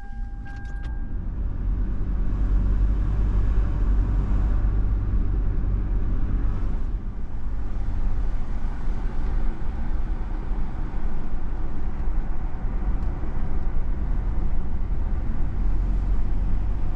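Car driving at road speed: steady engine and tyre rumble. A brief steady beep sounds at the very start.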